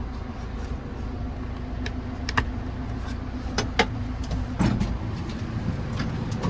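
JCB 4CX backhoe loader's diesel engine running steadily, with a few short sharp clicks and knocks over it, two close together a little past the middle.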